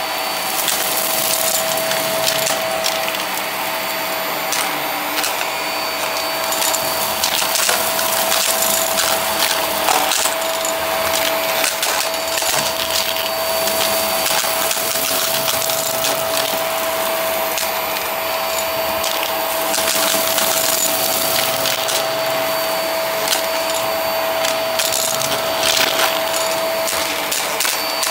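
Hart vacuum cleaner running with a steady whine while sucking up confetti, coins and small bits of wood from carpet. The debris crunches and clicks in scattered bursts as it is drawn through the head into the clear dust bin.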